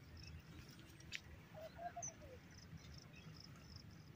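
Faint outdoor ambience: insects chirping in a steady pulsing rhythm, with a few faint bird chirps about halfway through and a single light click just before them.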